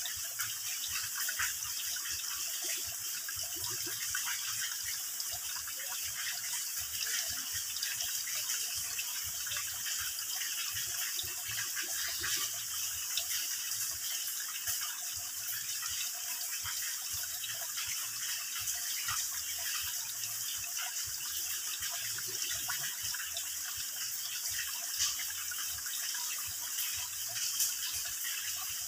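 Water trickling and dripping in thin streams off a mossy rock overhang into a shallow pool: a steady splashing hiss with many small drops landing throughout.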